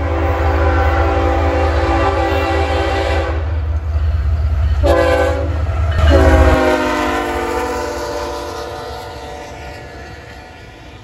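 Diesel freight locomotive sounding its multi-note air horn: a long blast, a short blast, then another long blast. The last blast drops in pitch as the locomotive passes and then fades away.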